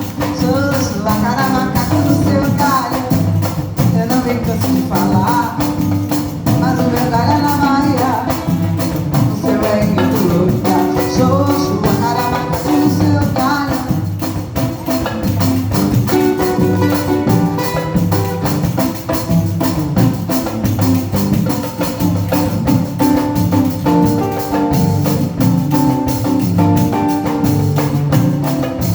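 Live samba music: a band with percussion and bass playing a steady groove. A bending melody line carries the first half, then gives way to repeated, even notes.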